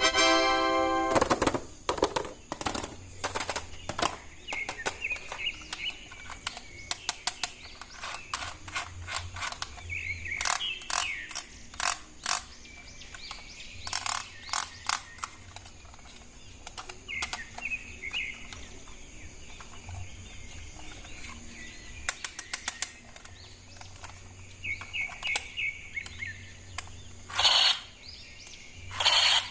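Irregular sharp clicks and taps, with birds chirping in the background; a short musical tone sounds at the very start.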